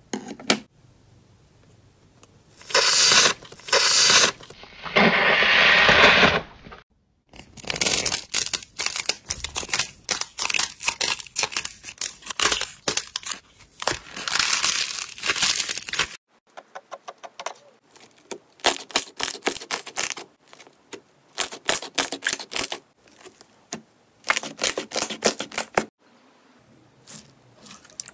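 Slime and foam clay squeezed, pressed and pulled by hand, making sticky crackling, tearing and popping sounds. A dense run of crackling sits in the middle, then it breaks into shorter separate bursts of pops with pauses between them.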